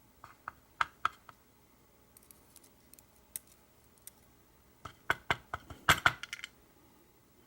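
Small metal clicks and taps from an American 1100 padlock's cylinder, its pins and the tools as the pins are worked out during disassembly. A few scattered clicks, then a quick cluster of sharper ones about five to six and a half seconds in.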